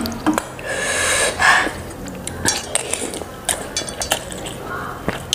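Metal cutlery clinking and scraping against a stainless steel bowl and plate as instant noodles are scooped up and eaten, with a few hissing slurps.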